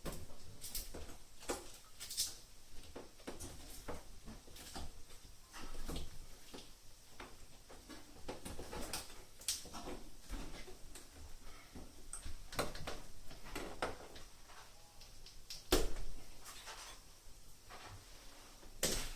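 Scattered light clicks, knocks and scrapes of hand work, irregular and unhurried, with one louder knock near the end.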